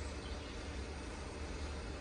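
Steady low rumble and hiss of outdoor background noise, with no distinct event standing out.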